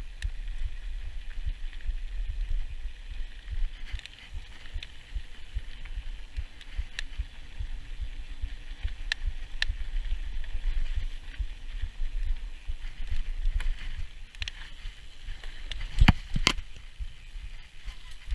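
Mountain bike rolling over a dirt and gravel surface, heard through a bike-mounted action camera: a steady low rumble of tyres and wind on the microphone, with scattered clicks and rattles. Two sharp knocks about sixteen seconds in, like jolts over a bump.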